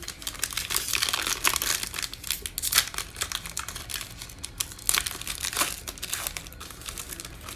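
Foil trading-card pack wrapper crinkling and tearing as it is ripped open and handled, in dense irregular crackles.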